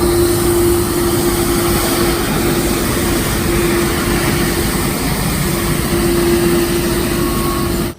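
Road sweeper running: a steady mechanical rushing noise with a constant hum through it, which cuts in and cuts off abruptly.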